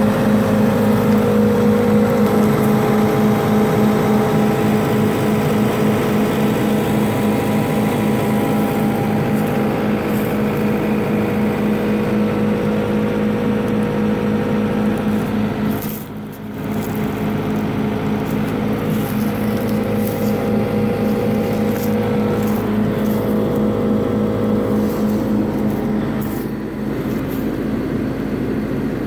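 A John Deere 75D excavator's diesel engine running steadily, a constant drone.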